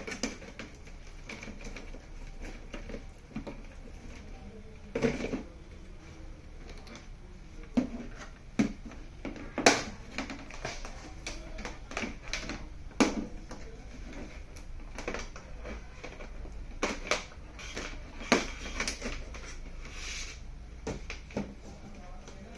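Irregular sharp clicks and taps of hands working on an opened LED TV's parts while the speakers are being fitted and connected, over a low steady hum.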